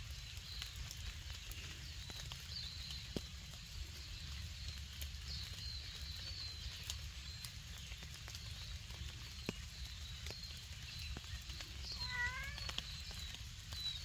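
Small birds chirping high and steadily in the background, with a few sharp ticks. About twelve seconds in, a domestic tabby cat gives one short meow.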